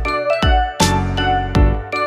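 Upbeat background music with a steady beat, a bright tinkling melody and a bass line.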